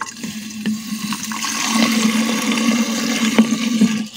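Water from a garden hose pouring into the plastic bottle of a manual foam sprayer, filling it on top of soapy water. A steady rushing that grows louder over the first couple of seconds, with a few light knocks.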